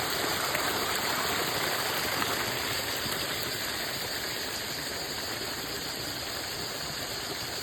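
Running water flowing steadily, a continuous rushing hiss.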